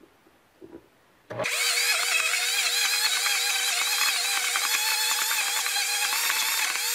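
Stainless-steel Vitamix 2200 high-speed blender motor switching on about a second in and running hard on thick cashew nut butter, which is being pushed down with a wooden tamper. The sound has a steady tone under pitches that waver up and down. It is sped up fourfold, which raises its pitch.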